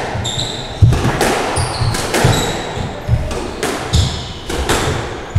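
Squash rally: the ball cracks off rackets and walls about once a second, the sharpest hit just under a second in, with sports shoes squeaking and footsteps thudding on the wooden court floor.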